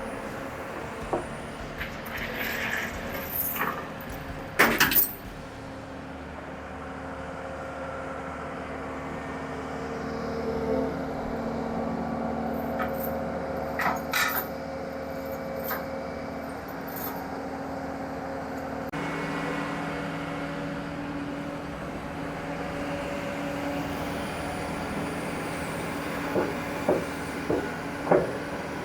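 Diesel engine of a Barko 595B ground saw running steadily under load while the machine is loaded onto a trailer, with sharp metal clanks, the loudest about five seconds in and another pair about halfway through.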